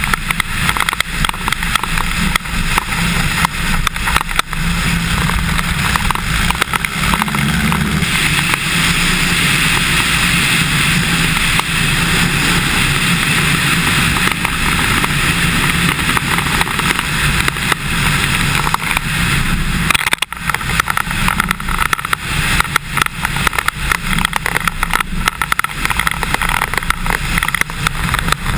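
Cessna 150's four-cylinder Continental O-200 engine and propeller running, with wind noise on the microphone. The engine note shifts about eight seconds in.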